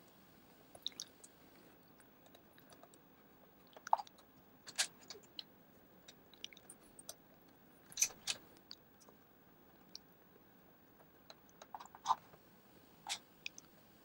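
Faint, scattered small clicks and crackles of a pry tool and fingers working the plastic base of a Mid-2007 Mac Mini out of its aluminium shell, the case's retaining clips creaking and releasing, with a handful of sharper clicks spread through.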